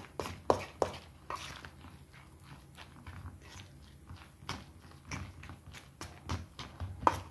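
Hand squeezing and mixing crumbly ricotta with egg in a stainless steel bowl: irregular wet squelches and small clicks.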